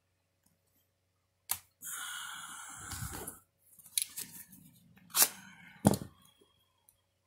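Objects handled on a tabletop: a sharp click, then about a second and a half of rustling, then a few separate sharp taps and clicks.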